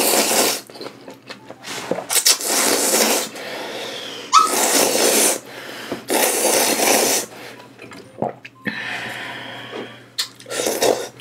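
A person slurping noodles out of a bowl of spicy red soup: about six long slurps in a row with short pauses between.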